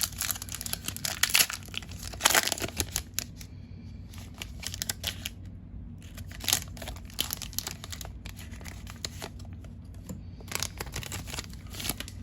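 Foil Pokémon booster pack wrapper being torn open and crinkled, in bursts of crackling that are heaviest in the first few seconds and come again twice later.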